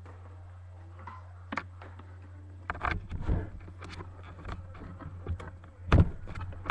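Irregular knocks, clicks and rustling from handling close to the microphone, with a loud knock about six seconds in, over a steady low electrical hum.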